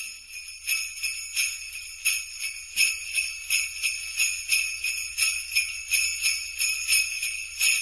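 Sleigh bells jingling on their own, shaken in a steady, even rhythm.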